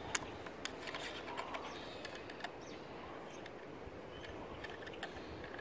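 Faint small clicks and rustling from hands working a rubber balloon seal around the bolt of a homemade air rifle. The clicks come most often in the first couple of seconds.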